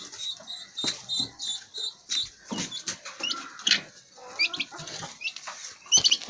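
Young poultry chicks peeping: repeated short, high chirps, growing louder and quicker near the end, mixed with scattered knocks and rustling.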